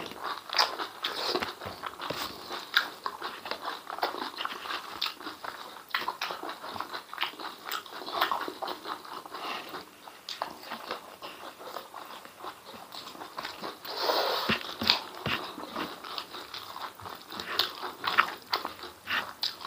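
Chewing and wet mouth clicks of a person eating spicy beef and chicken intestines with rice by hand, a quick irregular run of smacks and squelches. A longer wet noise about fourteen seconds in.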